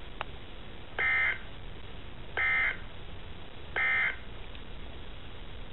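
NOAA Weather Radio SAME (EAS) end-of-message data bursts played through a weather radio's speaker: three short, buzzy digital tone bursts about a second and a half apart, marking the end of the tornado warning broadcast. A low steady hum runs underneath.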